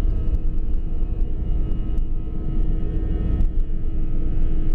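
Cabin noise of an Airbus A321-211 on its takeoff roll: the CFM56 engines at takeoff power with a heavy low rumble from the runway and a steady hum, with light rattles and clicks scattered through it.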